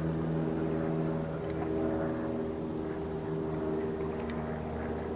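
A steady motor hum that holds one constant pitch throughout.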